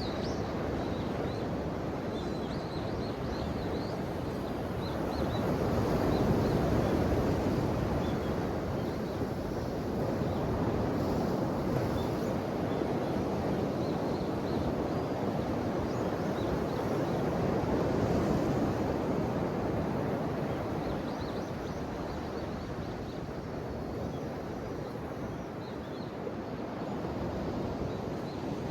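Ocean waves breaking and washing on the shore, a continuous rushing that swells louder about six seconds in and again around eighteen seconds.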